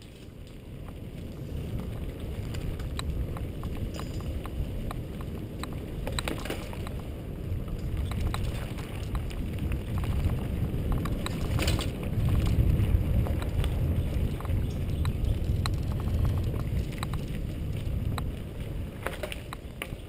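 Wind buffeting a helmet-mounted camera's microphone as a mountain bike rolls along a dirt trail, a low rush that builds over the first couple of seconds and is loudest a little past the middle. Scattered clicks and rattles from the bike run through it as it goes over bumps.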